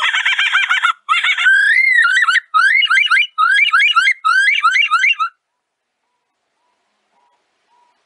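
Superb lyrebird singing its mimicry song: a fast, dense trill, then a quick run of repeated rising, sweeping notes that stops about five seconds in.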